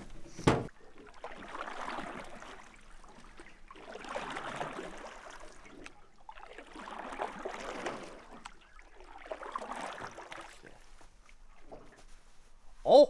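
A paddle pulling through river water beside a small boat: four long swishing strokes about three seconds apart, after a sharp knock against the boat about half a second in. A loud hooting call begins right at the end.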